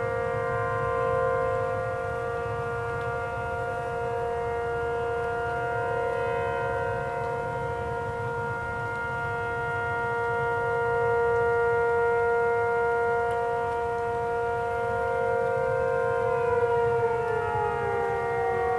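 Warning siren sounding a steady chord of several tones, then starting to wind down near the end, its pitch falling.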